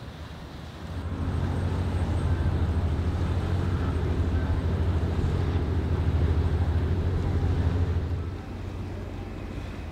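Engines of a Tenderworks tender boat running with a deep, steady drone as it passes. The drone grows louder about a second in and falls off sharply near the end.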